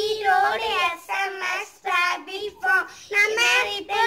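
Young boys' voices singing a chanted greeting in short phrases, with held notes and brief pauses between them.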